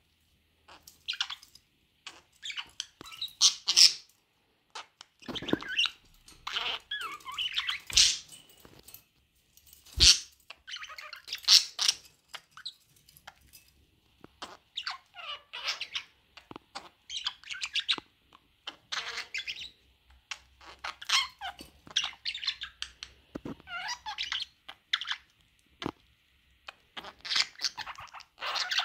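Budgerigars chirping and chattering in quick, high-pitched bursts, with two sharp knocks about eight and ten seconds in.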